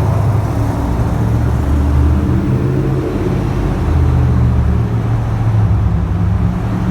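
V8 car exhaust running at low speed, a steady low drone that swells slightly twice without any sharp pops.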